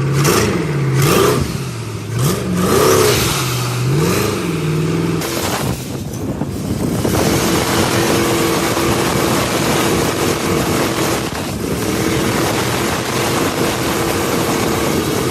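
A jet boat's turbocharged LS V8 engine is revved in several quick blips that rise and fall. It then holds at high revs for the rest of the time, easing off briefly once or twice.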